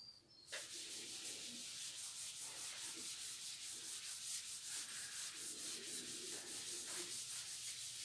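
Chalkboard being wiped with a cloth duster: rapid back-and-forth rubbing strokes that start about half a second in and keep going.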